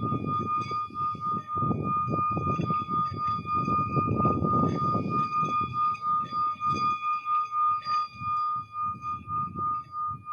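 A single steady high tone held unbroken, with fainter overtones above it, over a low rumble that swells and fades irregularly.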